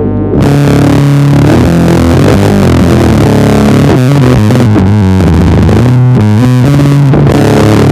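Electric bass played through a Darkglass Microtubes B3K overdrive and an SMFR fuzz pedal: a heavily distorted, slow stoner/doom riff of held low notes. A softer note jumps to the full fuzzed level about half a second in.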